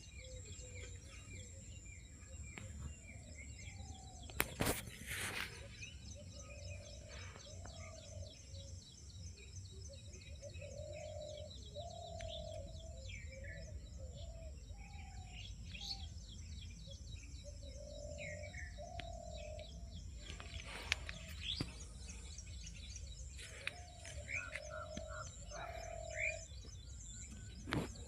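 Birds calling outdoors: steady high chirping throughout, with short low calls repeated many times from about a quarter of the way in, and a few sharp clicks.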